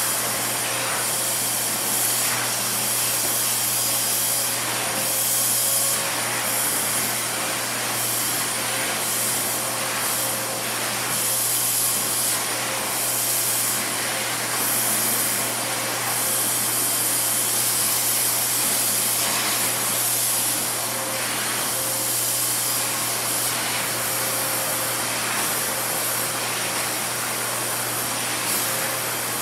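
Canister vacuum cleaner running steadily with a pet-grooming brush on its hose: a constant motor hum under a loud airflow hiss that swells and eases every second or two as the brush is stroked along a cat's fur.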